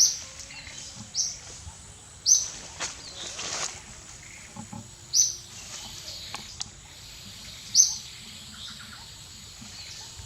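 A bird repeating a short, sharp, high chirp, one every two to three seconds, over steady outdoor background noise, with a few faint knocks in between.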